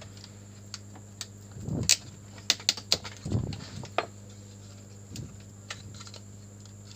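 Scattered sharp plastic clicks and a few soft knocks from handling and prying open a motorcycle digital meter's plastic housing, with a quick run of clicks around the middle, over a steady electrical hum.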